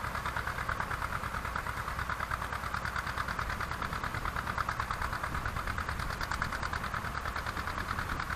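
Small tractor engine running steadily under load with a fast, even pulsing beat as it pulls a horse-drawn potato digger through the row.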